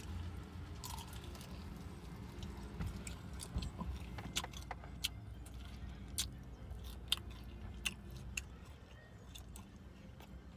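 Close-up eating sounds from chewing chicken wings: irregular wet smacks and sharp clicks of lips and teeth, over a low steady hum.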